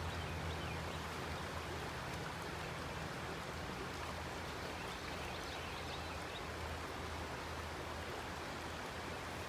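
River water rushing steadily, with a low steady hum underneath.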